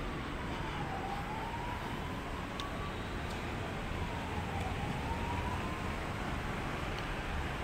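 A wailing siren whose tone falls and rises slowly in pitch, one cycle about every three and a half seconds, over a steady low rumble.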